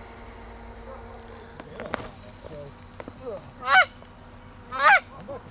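Canada goose honks: a few faint, short calls, then two loud honks about a second apart near the end, each breaking sharply upward in pitch.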